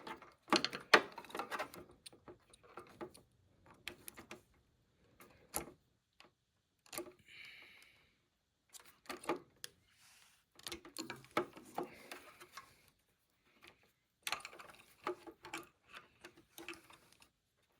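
Flat-blade screwdriver prying tight push-on wire connectors off a treadmill power switch's terminals: irregular metal clicks and short scrapes, in clusters with pauses between.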